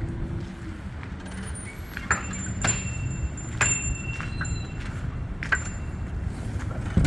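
Small metal pieces clinking and jingling about four times, each with a brief high ring, over a steady low rumble.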